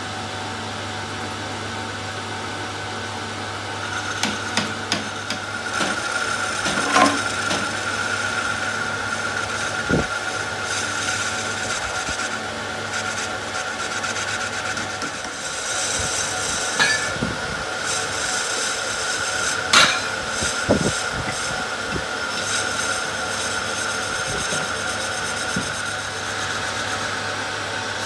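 Metal lathe running with a steady hum and whine while its tool bit cuts a spinning handle blank, adding a rasping hiss from about four seconds in. A few sharp clicks and knocks come at intervals.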